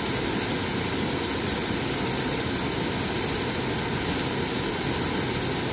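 Waterfall pouring onto rock, a steady unbroken rush of falling water.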